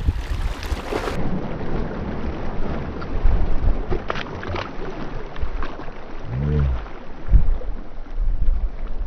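Wind buffeting the microphone over sea water lapping at shoreline rocks, with a splash about four seconds in as a released queenfish hits the water.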